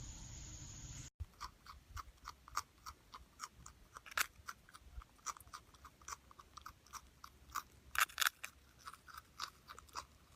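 A marmot chewing a piece of food held in its paws: a run of short, sharp crunching clicks, about four a second, beginning about a second in.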